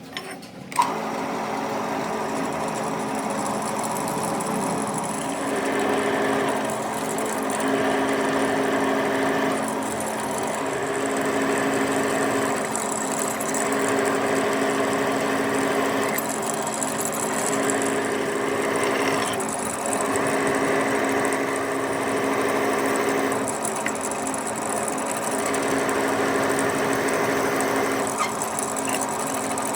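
Electric metalworking machine tool switched on with a click about a second in, then running steadily with a hum. A higher part of the sound swells and fades every three to four seconds, as the machine works.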